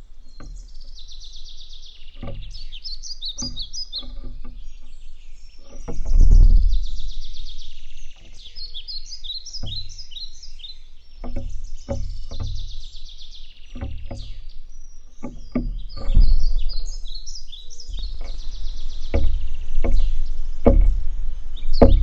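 A scrub-jay pecking at seed on a wooden tabletop right by the microphone, making sharp irregular knocks and a few heavier thuds. Behind it a small songbird sings short twittering phrases, one about every four to five seconds.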